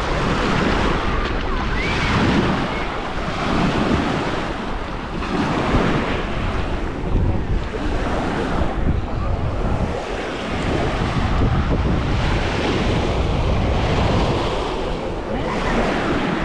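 Wind buffeting an action camera's microphone in uneven gusts, over waves washing on a sandy beach.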